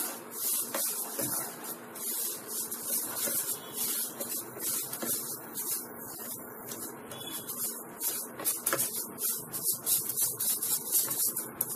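Vermicelli toasting in ghee in a nonstick pan over medium-low heat: a steady sizzle with repeated soft scrapes and taps as a spatula stirs it around the pan.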